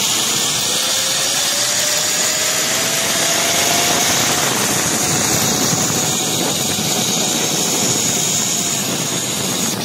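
Zipline trolley pulleys running along the steel cable, a whine rising in pitch over the first few seconds and then holding steady, under a loud, even rush of wind.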